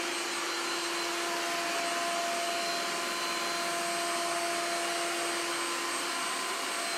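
Ecovacs Deebot OZMO T9 robot vacuum running in its highest suction mode: a steady rushing hum with a constant whine, measured at about 67 dB.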